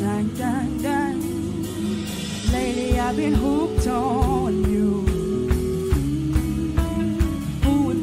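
Live band with singers: sung vocals with a wavering vibrato over electric bass and a drum kit, the drum beat coming in fuller about two and a half seconds in.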